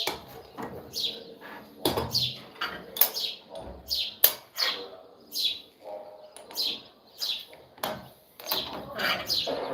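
Small bird chirping over and over: short, high chirps that fall in pitch, about one or two a second. A few sharp knocks are mixed in.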